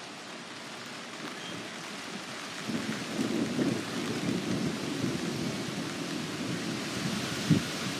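Steady hiss of rain. About three seconds in, a low rumble of thunder comes in and rolls on, with a brief sharp thump near the end.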